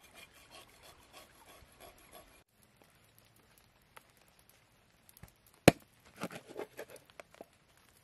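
A knife blade scraping along a snake's skin, several strokes in a row. After a short break come rubbing and knocks on a wooden cutting board, with one sharp, loud knock a little before six seconds in.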